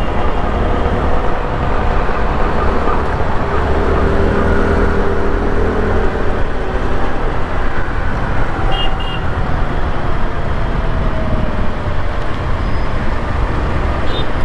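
Steady road-traffic noise heard from a moving scooter: engine and tyre rumble with wind noise. A couple of short high beeps come about nine seconds in and again near the end.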